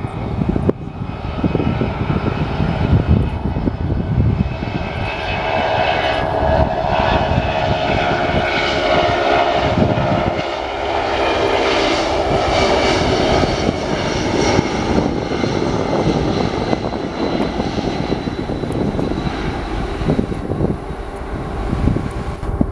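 Boeing 757's twin turbofan engines at takeoff thrust as the jet accelerates down the runway to rotation: a loud, continuous jet noise with steady whining tones, loudest midway through.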